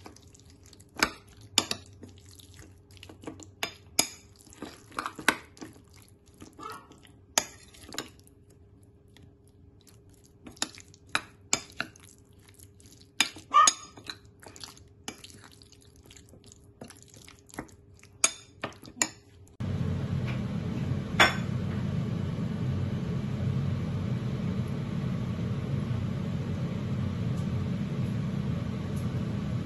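Metal spoon clinking and scraping against a ceramic bowl while stirring chicken pieces in a thick marinade, in irregular sharp clinks. About two-thirds of the way through, this cuts off abruptly to a steady low hum, with one more sharp click shortly after.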